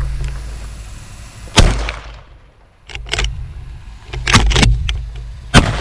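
Two shotgun blasts about four seconds apart, fired at a flying dove and missing it, with softer knocks and rustling between them.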